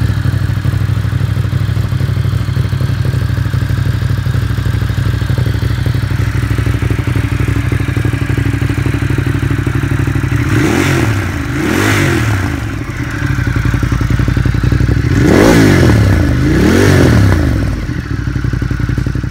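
Ducati Monster 1200 R's L-twin engine idling through Termignoni carbon slip-on silencers, then revved in quick throttle blips: two about halfway through and two more near the end.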